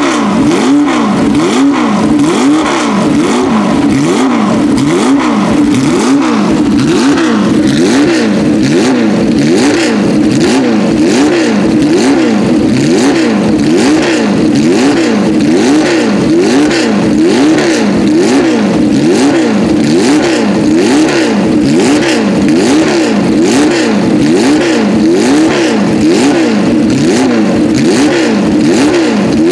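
Porsche 908/03's 3.0-litre air-cooled flat-eight racing engine, stationary and being revved over and over. The pitch rises and falls about once a second in a steady rhythm through its open exhaust pipes.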